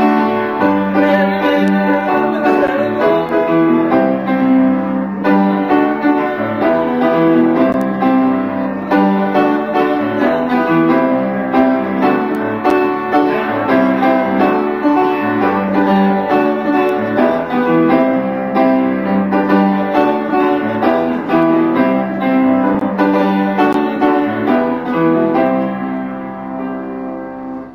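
Upright piano being played: a song accompaniment of chords and melody notes that dies away near the end.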